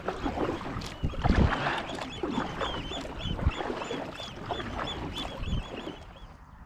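A bird calling in a fast series of short, high chirps, about four a second, that stop near the end. Irregular knocks and rustling sound underneath.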